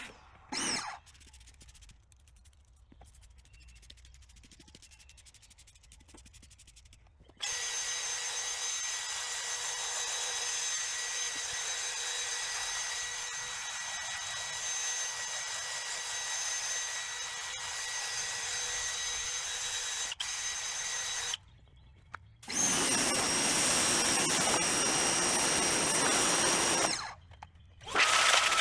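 An electric cleaning tool's small motor runs with a steady whine while it works on a carpet floor mat. It starts about seven seconds in and runs for about fourteen seconds, stops briefly, then spins up and runs again for about five seconds.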